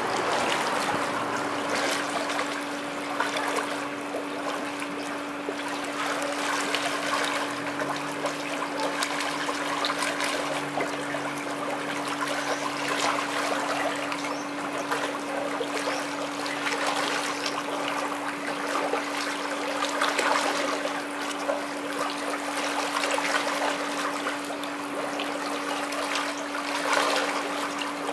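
Water churned by a swimming-pool swim jet's counter-current, a steady rushing, with repeated splashes from a swimmer's front-crawl arm strokes. A steady hum runs underneath.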